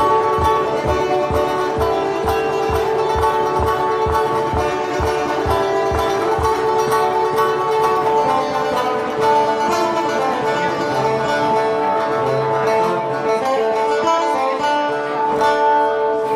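Metal-bodied resonator guitar played with a slide: gliding slide notes over a ringing open-string drone. A steady low thump keeps time, about two a second, through the first half.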